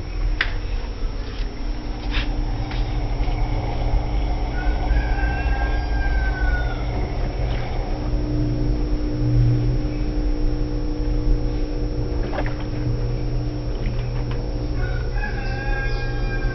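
Electrolux washing machine running with a steady low hum, while a rooster crows twice, a long arched call about four seconds in and another near the end.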